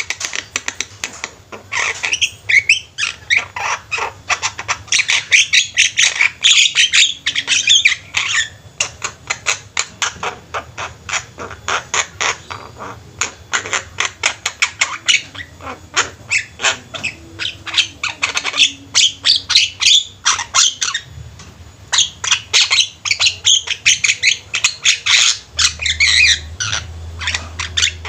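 A flock of Javan mynas chattering together: rapid harsh squawks, rattles and clicking notes in dense overlapping bouts, easing off briefly past the middle before building again.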